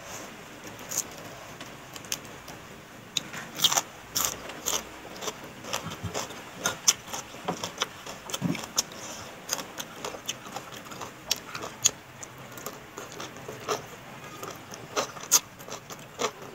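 Close-up eating sounds: irregular crisp crunches and wet mouth clicks of someone chewing raw vegetables and papaya salad, starting about three seconds in.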